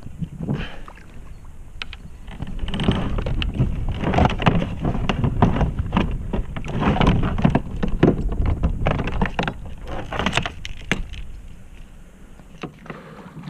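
Irregular splashing and sloshing of water at a kayak's side, with knocks on the hull, heaviest in the middle. A hooked redfish is being fought at the surface beside the kayak.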